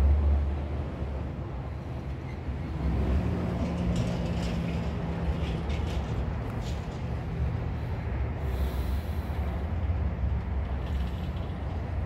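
Aerosol tire sealant can discharging through its hose into a flat tire's valve stem, a faint hiss over a steady low outdoor rumble.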